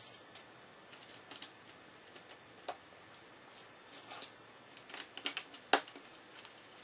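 Plastic Lego bricks clicking and tapping as pieces are picked up, handled and pressed together, in irregular small clicks with one sharper click near the end.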